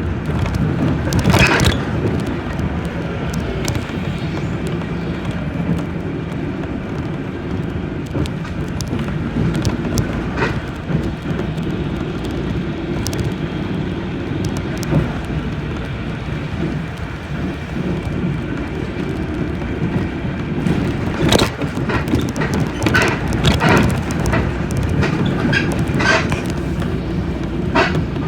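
City bus in motion: steady engine and road noise, with scattered sharp rattles and knocks, several of them close together near the end.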